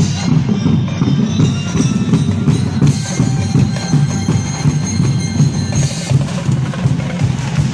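Street-dance percussion band beating large plastic barrel drums with sticks: a loud, dense, steady drumbeat.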